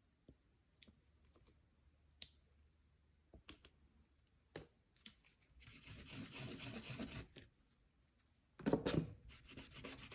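A few light clicks of small tools and plastic set down on the desk. Then a tool is scraped across a metal nail stamping plate: a rough scrape about six seconds in, and a louder rasp a little before the end.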